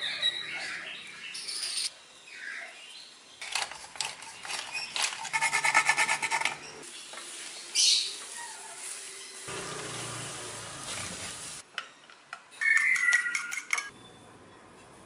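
Cooking sounds: a wooden spoon stirring and scraping a thick meat-and-white-sauce mixture in a frying pan. Near the end, a fork beats egg in an enamel bowl with quick, ringing clinks.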